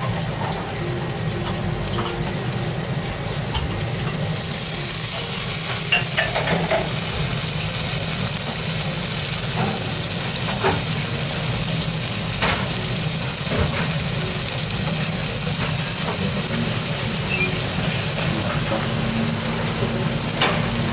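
A slice of breaded wagyu beef cutlet sizzling on a small hot griddle plate heated by a flame beneath, the sizzle coming in about four seconds in and carrying on steadily. A few light clicks, and a steady low hum underneath.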